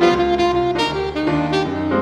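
Alto saxophone playing a jazz melody line of quick, changing notes, with grand piano accompaniment beneath.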